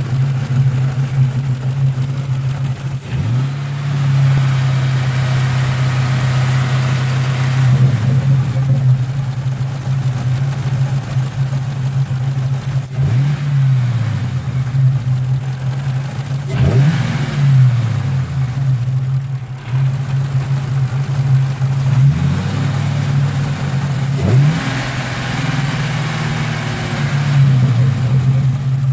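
Ford 4.6 V8 with an Edelbrock Victor Jr intake, running at a fast idle that a new idle air control valve has not cured, with a sound like a sewing machine. Its speed sags and picks back up briefly several times.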